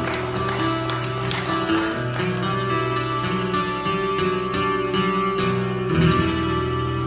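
Acoustic guitar playing: strummed chords with notes ringing on, a steady run of strokes and no singing.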